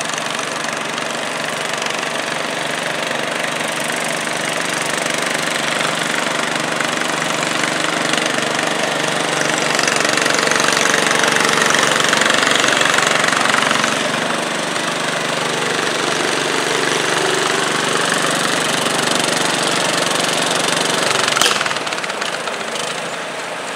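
Engines idling steadily at a garden tractor pull: the lawn tractor sits hitched to the pulling sled, not yet under load. The sound grows a little louder in the middle, and one sharp click comes near the end.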